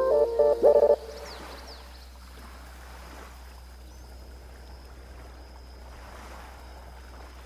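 A few bell-like music notes that stop about a second in, followed by a soft, steady wash of ocean waves on a beach, with a few faint high bird chirps.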